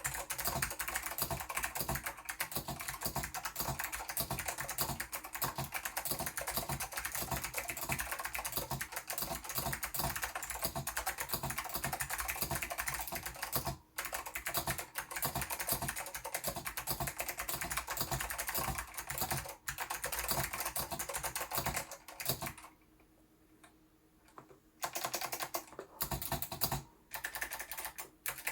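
Fast typing on an OEMMAX MCK-860 mechanical keyboard with clicky Blue Alps switches: a dense stream of keystroke clicks. Near the end it stops for about two seconds, then a few scattered keystrokes follow.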